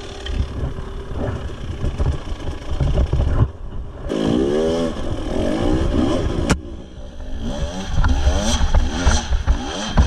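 Husqvarna TE300 two-stroke enduro motorcycle engine revving up and down repeatedly while it is ridden over rough, rocky ground. There is a sharp knock about six and a half seconds in.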